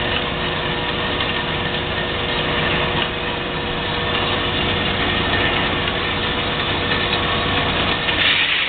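JET 10" x 18" horizontal band saw running steadily: the motor and moving blade make a constant mechanical whir with a few steady tones. It turns briefly harsher and more hissing about eight seconds in.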